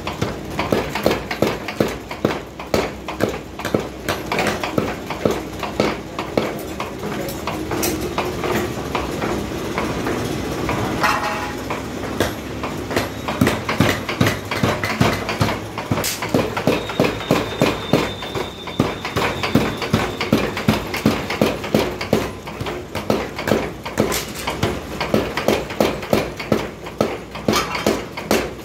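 Belt-driven mechanical power hammer pounding a red-hot steel bar on its anvil: a rapid, steady series of evenly spaced blows.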